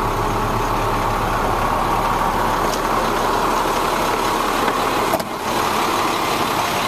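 The DT466 diesel engine of a 2003 International 4300 truck idling steadily, with one brief knock about five seconds in.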